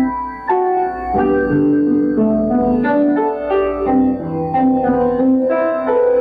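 Piano playing a melody over chords.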